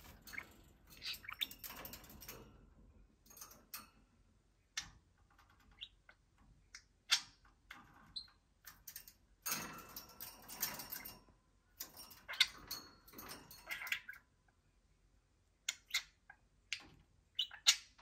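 Pet budgerigars warbling and chattering in spurts, with sharp clicks between them from a beak tapping on a toy mini laptop's plastic keys and mirror screen.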